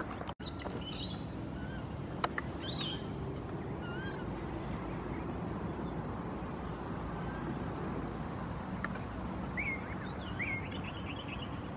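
Scattered short bird chirps and whistles over a steady low background rumble, with a clump of quick chirps near the end.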